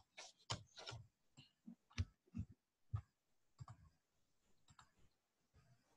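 Near silence: faint room tone broken by a few brief, soft sounds.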